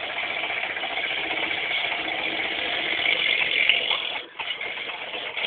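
Monster truck's 7.5-litre big block V8 petrol engine running steadily as the truck makes a tight four-wheel-steering turn, dropping away briefly about four seconds in.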